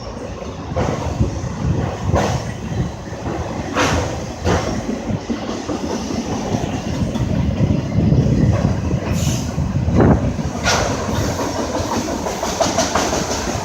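A train rolling past with a continuous rumble, its wheels clacking over rail joints every second or so.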